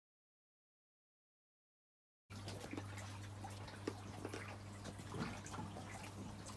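Dead silence for about two seconds, then water dripping and trickling over a steady low hum.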